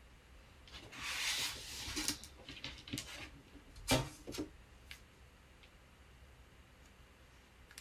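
Handling noise: a rustling rub about a second in, then a few light clicks and a sharper knock about four seconds in, then quiet.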